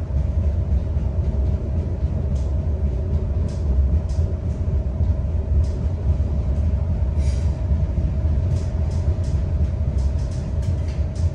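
Cabin noise inside an Adelaide Metro 3000 class diesel railcar under way: a steady low rumble with a constant hum above it, and scattered light clicks.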